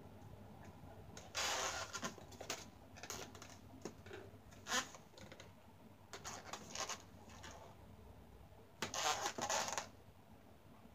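Marker pen drawing on an inflated latex balloon, with the balloons rubbing in the hands: a series of short, scratchy rubbing strokes with a brief sharp one about halfway through.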